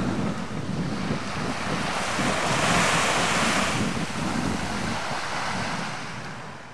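Sea waves washing at the water's edge, with gusty wind buffeting the microphone; it fades out near the end.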